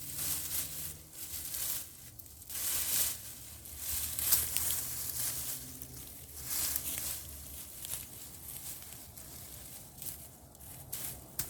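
Digging and rustling in wood-chip mulch and sweet potato vines: irregular scraping and crunching strokes, with a faint steady low hum underneath.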